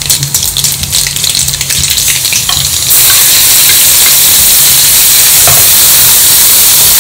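Hot oil sizzling in a wok during a tempering, the mustard seeds and urad dal crackling, as chopped green chillies and ginger go into the oil and are stirred with a steel spatula. About three seconds in the sizzle jumps to a loud, steady hiss.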